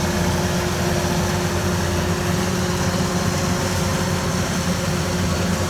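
Kubota DC-93 combine harvester running steadily under load while cutting rice: an even diesel engine drone with a held tone above it.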